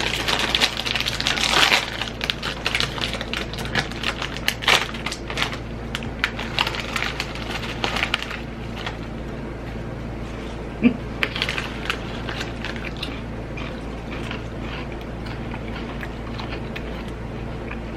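Snack bag crinkling and potato chips being crunched, densest and loudest in the first two seconds, then scattered crunches while chewing.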